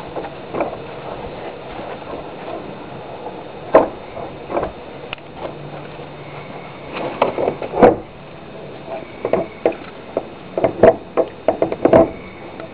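A horse working a stall door's lock with its mouth: irregular knocks and rattles of the latch and door, a few single ones and then quick clusters in the second half.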